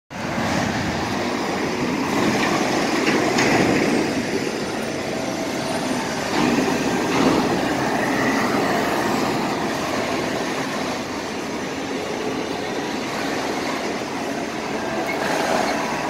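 Busy city street noise: a steady, loud rumble of heavy traffic, with buses and trucks running close by.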